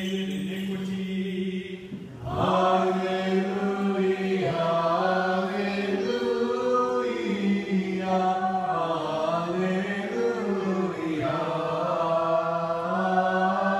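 Orthodox liturgical chant: voices singing a melody over a steady held drone note, which drops out briefly twice.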